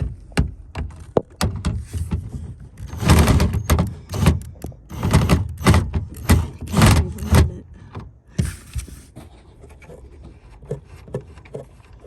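Clattering, knocking and rattling of hands and tools working at a car's tail light assembly, with a run of louder rattles in the middle and scattered small clicks after.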